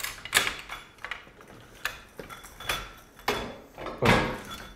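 Irregular clunks and knocks of tools and metal car parts being handled while a wrecked Tesla Model S is dismantled, about half a dozen in all, the loudest about four seconds in.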